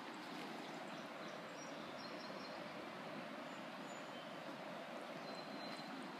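A steady, faint rushing background noise with no rhythm or distinct events, with a few faint, brief high chirps.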